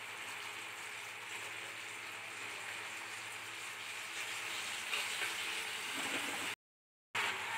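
Spiced onion-tomato gravy sizzling in a frying pan as fried pomfret pieces are slid in from a plate; the sizzle grows louder and crackles about five seconds in, then cuts to silence for a moment near the end before resuming.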